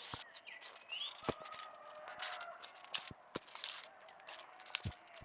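Quiet outdoor field ambience: a bird gives a short rising chirp about a second in, with scattered light clicks and rustles from footsteps over the field.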